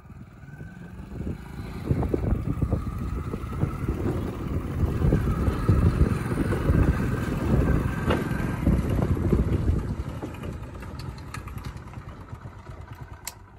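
Small motorcycle engine running as the bike rides up and slows to a stop. It grows louder over the first couple of seconds and dies down over the last few, with a few sharp clicks near the end.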